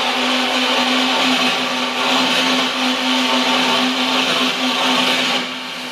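Stage fog machine running: a steady buzzing hum under a hiss, fading out near the end.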